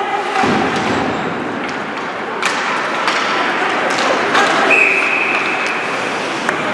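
Ice hockey play in a rink: a steady hiss of skates on ice with a few sharp stick-and-puck knocks. Near the end a referee's whistle sounds once, a steady tone of about a second that stops play.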